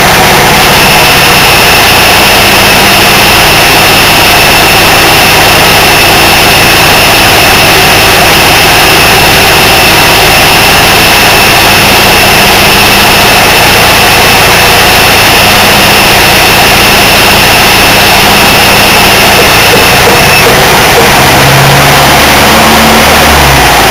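Morris 1100's four-cylinder A-series engine running steadily and loudly while driving a turret lathe, with a steady high whine over it that stops about twenty seconds in. Near the end the engine note shifts. The owner judges the engine would throw a rod if pushed any harder under this load.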